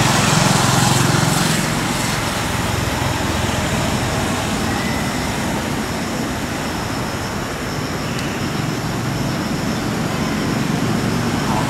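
Steady rushing outdoor background noise with a low rumble, a little louder in the first two seconds.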